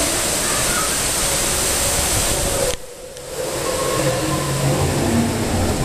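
Rushing, churning water of a river-rapids raft ride, a loud steady rush. It cuts out abruptly for about half a second near the middle, then builds back up.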